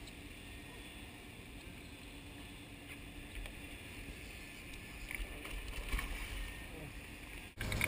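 Muffled, steady boat and water noise, with a few sharp splashes about five to six seconds in as a hooked wahoo thrashes at the surface beside the hull.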